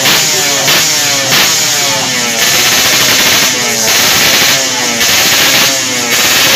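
Yamaha RX-King two-stroke single-cylinder engine, tuned up to 140cc for road racing, revved in a string of quick throttle blips, its pitch rising and falling over and over.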